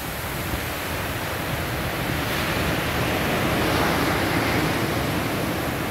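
Ocean surf on a sandy beach: a large wave breaking and washing up the shore, its rush swelling about two seconds in, peaking near the middle and easing off near the end.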